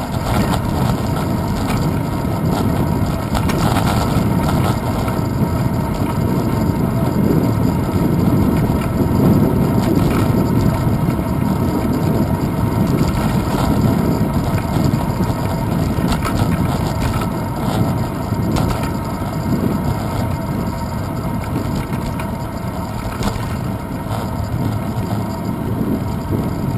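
Steady rumble of a bicycle rolling over asphalt, carried through the handlebars into a handlebar-mounted GoPro Hero 2, mixed with wind noise on the camera's microphone.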